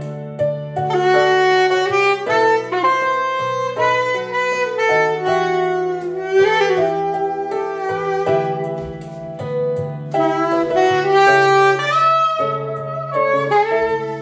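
Chempo soprano saxophone playing a melody of quick and held notes over a steady, low sustained accompaniment.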